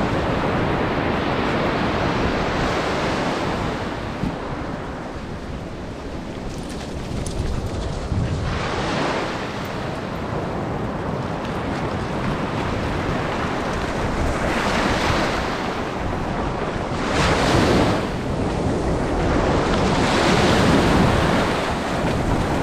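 Sea waves breaking and washing up a beach, surging louder several times, with wind buffeting the microphone.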